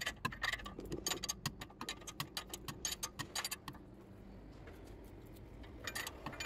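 Wrench clicking in short rapid runs as a nut is tightened on a car's front suspension ball joint, with a pause of about two seconds before the clicking resumes near the end.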